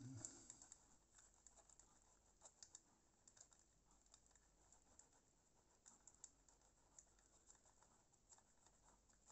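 Near silence with faint, scattered little clicks and scratches: a cotton bud rubbing and scraping at the wheels of a Piko BR 55 model locomotive to clean off dirt picked up from the track.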